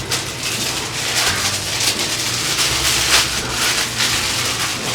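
Packaging being handled as a coffee maker is unwrapped: a continuous run of crinkling and rustling, with many small crackles.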